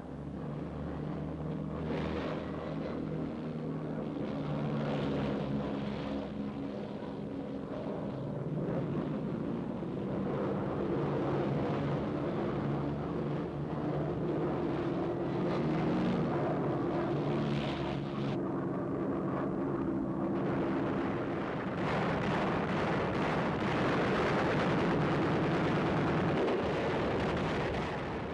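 Propeller aircraft piston engines running on a carrier deck, a steady multi-tone engine drone whose pitch shifts as the planes rev. About 22 seconds in it turns louder and noisier, like engines at full power.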